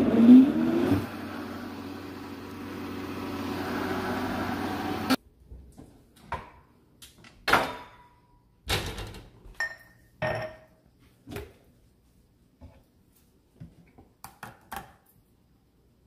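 Countertop blender blending a smoothie: the motor spins up with a rising whine, runs steadily, then stops abruptly about five seconds in. After it, a string of knocks and ringing clinks as drinking glasses are handled and set down on a granite counter.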